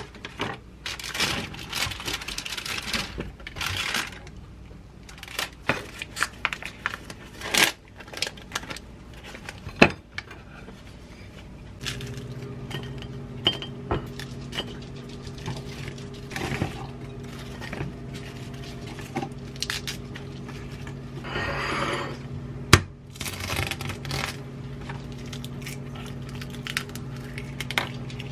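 Kitchen food-prep handling: parchment paper rustling and light clicks and taps of food and dishes being set down. About halfway through, a steady low appliance hum starts and keeps going, with a sharp click a little later.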